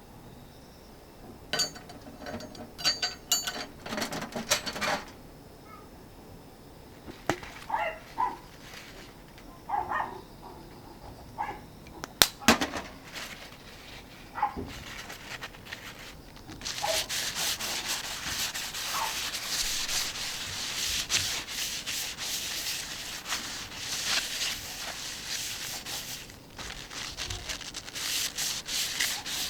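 Scattered clicks and knocks of handling, then from about 17 seconds in, steady rough rubbing over a thick steel griddle plate as oil is worked into it to season the plate.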